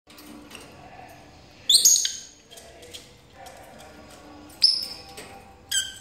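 Rosy-faced lovebirds giving sharp, high-pitched calls: three loud shrieks, a couple of seconds in, just before five seconds, and near the end.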